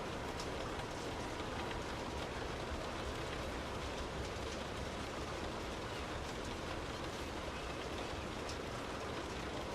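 Steady rain heard from indoors, an even hiss of rainfall with scattered individual drop ticks.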